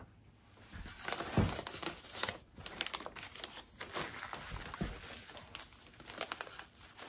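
Plastic zipper-lock bag crinkling as it is handled, in irregular crackles with a few sharper clicks.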